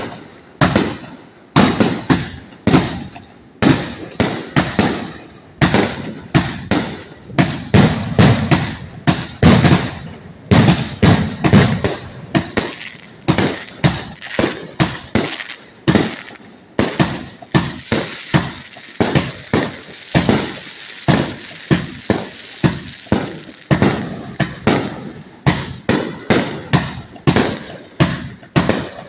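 A 66-shot firework cake firing shot after shot, about two sharp bangs a second, each with a short decaying tail as the shells launch and burst. Through the middle stretch a steady high hiss fills the gaps between the shots.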